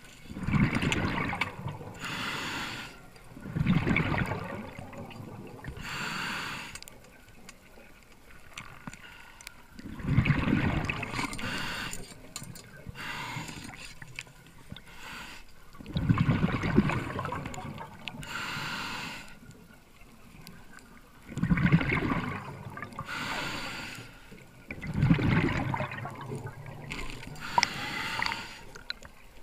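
A scuba diver breathing through a regulator: a hiss on each inhale, then a loud rumbling gush of exhaled bubbles, repeating every few seconds.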